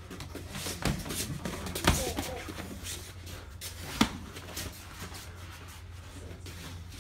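Boxing gloves landing as punches are thrown in sparring: a few sharp hits about one, two and four seconds in, over a steady low hum.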